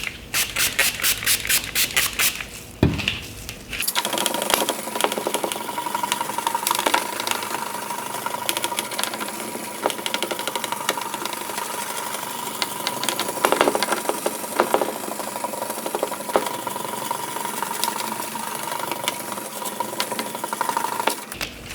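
Hand wet-sanding of a plastic headlight lens with a fine-grit sanding pad, scrubbing in quick rhythmic strokes of about six a second. From about four seconds in, the scrubbing goes on more steadily, with a thin steady high tone under it.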